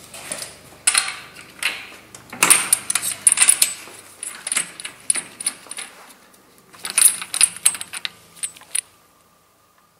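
Metal hand tools clinking and rattling in quick clusters of sharp clicks as a spark plug socket wrench is worked on the Polaris 600 XLT triple's cylinder head to pull the spark plugs. The clatter stops about nine seconds in.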